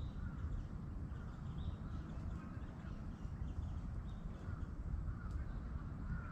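Birds calling over and over, short repeated calls, over a steady low rumble.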